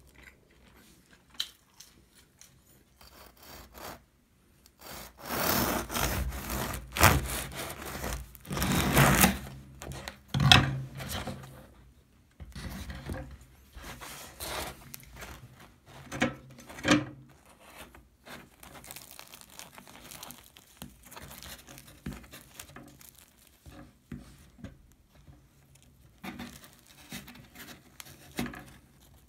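The crisp crust of a freshly baked ciabatta loaf crackling and crunching as it is cut and torn on a wooden cutting board, loudest in a dense run of crackles early in the first half. Softer, scattered crackles follow as the airy crumb is pulled apart by hand.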